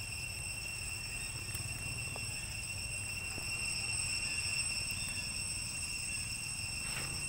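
Steady, high-pitched drone of insects under a low rumble, with a few faint clicks.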